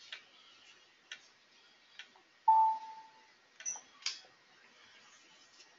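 A few light computer mouse clicks, spread out, and about two and a half seconds in a short electronic chime from the computer, which is the loudest sound.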